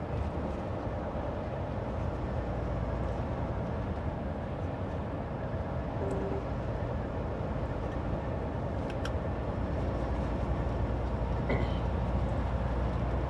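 Steady engine and road rumble inside a semi truck's cab while driving.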